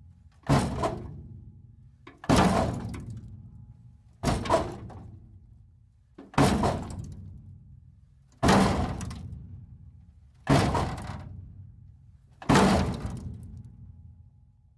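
Metal breaking apart: seven sudden crashes about two seconds apart, each dying away over a second or two.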